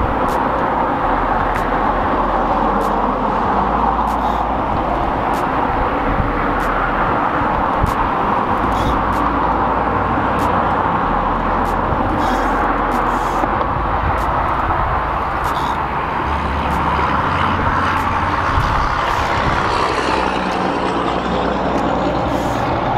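Steady, loud rushing noise, with faint sharp ticks now and then.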